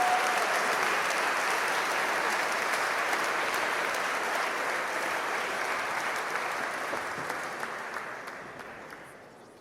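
Audience applause: a dense, steady patter of many people clapping that thins out and fades away over the last couple of seconds.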